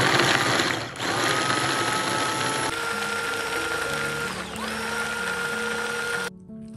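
Small cordless electric mini chopper running, its motor whining and blades whirring through chopped food. The whine rises slightly, dips briefly about four and a half seconds in, and cuts off suddenly shortly before the end.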